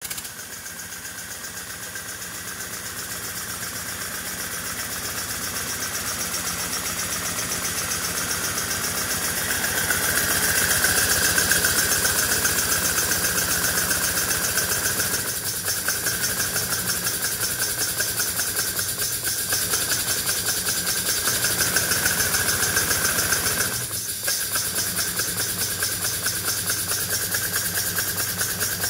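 Chassis of a 3/4-inch-scale 4-8-4 Northern live steam locomotive running on a test stand, its cylinders and Walschaerts valve gear and rods driving the spinning wheels. It makes a rapid, even beat that grows louder over the first ten seconds or so, dips briefly near the end, then picks up again.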